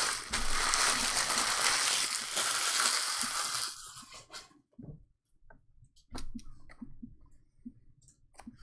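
Trading card pack wrapper crinkling and tearing as it is ripped open, loud for about three and a half seconds, then a few faint light taps of cards being handled.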